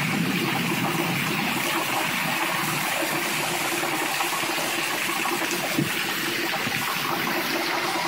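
Torrential rain pouring down in heavy streams and splashing on a paved driveway, a steady rushing hiss.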